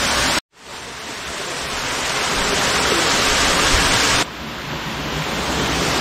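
Small waterfall splashing down a series of mossy boulders: a steady rushing of falling water. It cuts out for an instant about half a second in, then swells back up, and drops in level about four seconds in.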